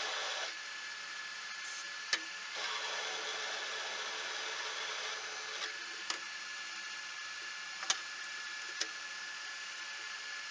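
Small metal lathe running with a steady whine while its tool cuts steel, a hissing cutting noise that stops about half a second in and returns for a few seconds in the middle. Several sharp metallic clicks are heard through the second half.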